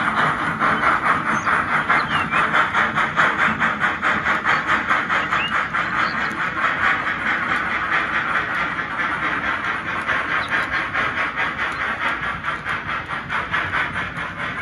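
HO-scale model steam locomotives pulling a freight train: a fast, even chuffing beat, about three pulses a second, slowly growing fainter as the locomotives draw away.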